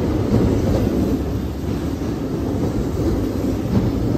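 Kyoto Municipal Subway Karasuma Line train moving slowly along the station platform: a steady low rumble of wheels and traction motors.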